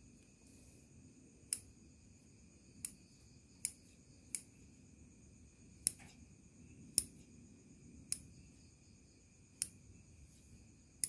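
Kaneshin No. 35E bonsai scissors being opened and closed in the air, their steel blades snapping shut with about nine sharp snips roughly a second apart.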